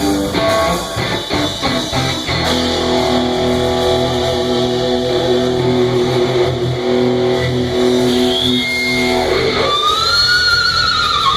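Guitar playing: a few struck chords, then long held notes, with a note bent up and back down near the end.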